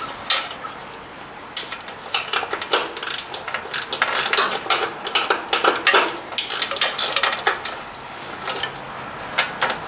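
Hand wrench on the small nuts of a tractor's dash-mounted temperature gauge: a run of quick, irregular metallic clicks and clinks that thins out near the end.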